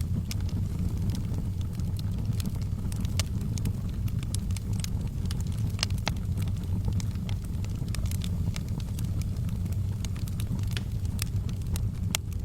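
Fire burning in a fireplace: a steady low rush of flames with irregular sharp crackles and pops scattered throughout.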